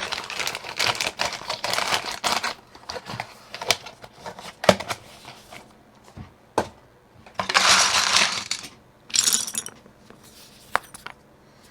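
Loose plastic XVX pudding keycaps clattering against each other as they are handled, with sharp single clicks and two longer rattling bursts about two-thirds of the way in.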